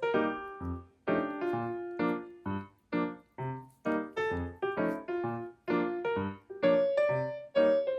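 Background music: a light keyboard melody of separate notes, each struck and fading, about two to three a second.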